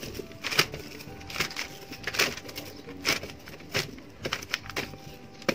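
Red shallots handled and dropped into a bag of glossy paper: irregular light knocks of the bulbs against each other and against the paper, mixed with paper rustling.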